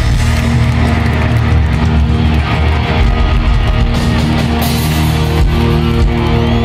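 Live rock band playing at full volume: electric guitars over a drum kit.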